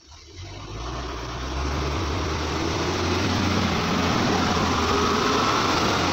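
Loudspeakers driven by a high-power amplifier giving out a loud, steady hum and hiss, with a strong low mains-hum tone. It swells up over the first second or two, then holds steady.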